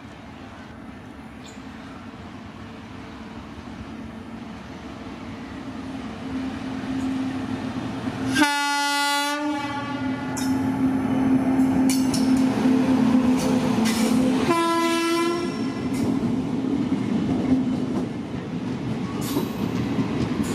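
Indian Railways train passing through a station at speed, its running noise building from about six seconds in. The locomotive's horn sounds twice, about six seconds apart, each blast about a second long.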